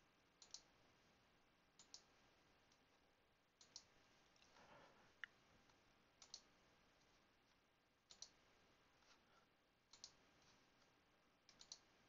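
Faint computer mouse clicks over near silence, one every second or two, several in quick pairs.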